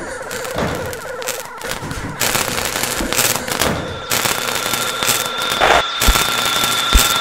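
Loud crackling static with many sharp pops, a mock UFO-encounter sound effect. About four seconds in, a steady high-pitched whine joins the crackle.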